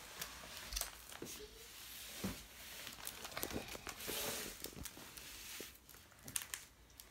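Plastic sleeve pages of a trading-card binder crinkling and rustling as they are handled and turned, with scattered light clicks and taps; the busiest rustle comes about four seconds in.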